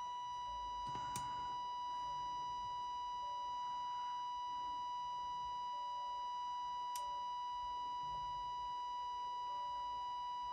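Steady test tone with a buzzy ladder of overtones, held without a break, coming through the EICO 150 signal tracer's speaker: distorted, as the tracer's amplifier is not working correctly after its transistors were replaced. A couple of faint clicks as the probe touches the circuit, about a second in and about seven seconds in.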